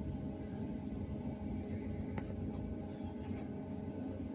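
Cabin sound of a BKM 321 trolleybus riding: a steady low rumble with a faint steady whine above it, and a light click about two seconds in.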